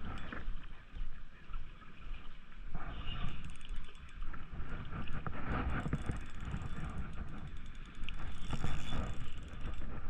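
A fishing reel being cranked in uneven spurts, with a fast mechanical clicking, while a hooked fish is played out of the rocks.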